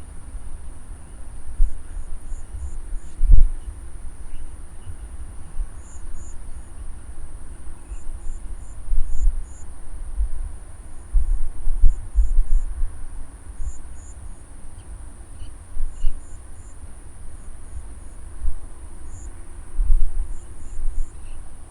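Steady, high-pitched insect chorus, with short high chirps repeating in little groups of two to four. A low, irregular rumble comes and goes underneath and is the loudest sound.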